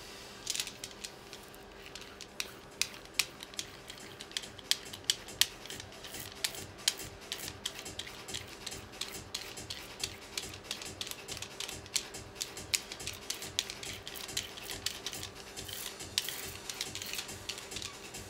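Wood glue being spread along a board edge with a small roller: a run of sharp, irregular clicks and sticky crackles, thickest near the end.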